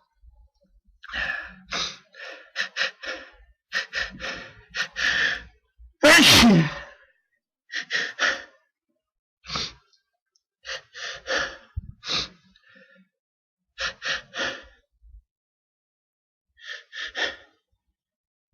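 A person's sneeze fit: clusters of short, sharp hitching gasps, then one loud voiced sneeze about six seconds in, followed by more rounds of hitching breaths.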